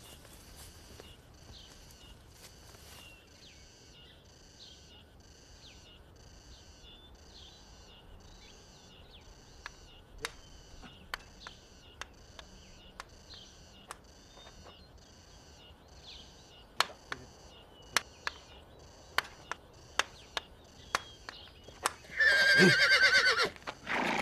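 A horse's hooves clop on dirt in sharp, uneven strikes that get louder in the second half. A loud horse whinny comes near the end. Through the first two-thirds runs a steady rhythmic chirping of insects, about two and a half chirps a second.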